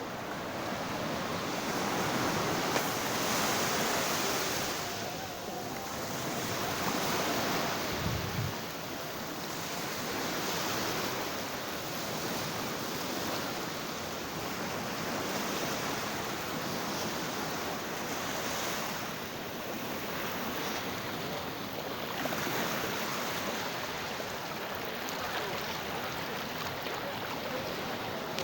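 Sea waves washing in: a steady rush of surf that swells and eases every few seconds. A brief low thump about eight seconds in.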